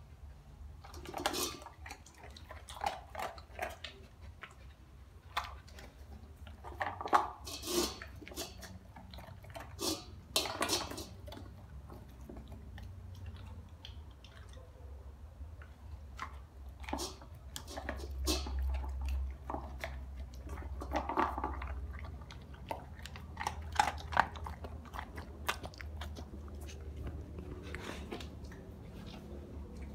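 Large dog chewing dry kibble from a metal bowl: irregular crunches, loud at times, with pauses between mouthfuls.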